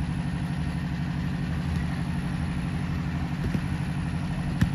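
An engine idling steadily with a fast, even low throb. A single sharp knock comes near the end.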